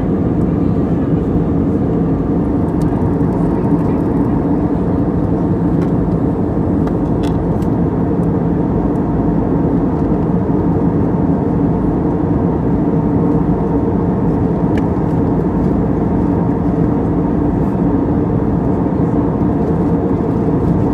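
Steady engine and airflow noise inside a jet airliner's cabin in flight: an even, low rumble with no changes.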